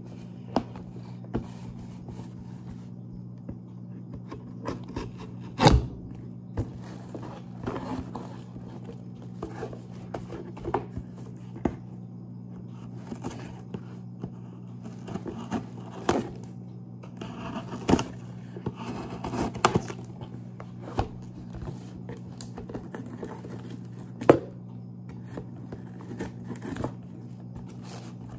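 Scissors scraping and cutting at packing tape on a cardboard shipping box, with the box being handled and set down on a table: irregular scrapes and sharp knocks, the loudest knocks about six seconds in and near the end, over a steady low hum.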